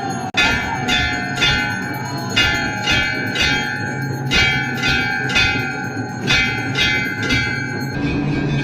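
Temple bells rung repeatedly, about two strokes a second, each ringing on into the next, over a steady low hum; the ringing stops near the end.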